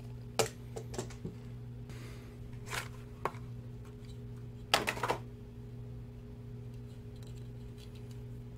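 Handling noise: a scattering of light clicks and knocks as a rod with a baitcasting reel and a plastic spool of braided line are picked up and set down on a table, the loudest cluster about five seconds in, over a steady low hum.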